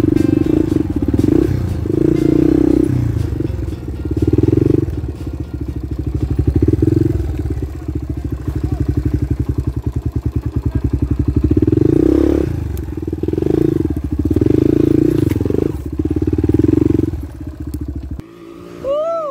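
Dirt bike's single-cylinder engine revving in repeated surges and easing off between them, working under load on a steep grassy hill climb. The engine sound breaks off abruptly near the end.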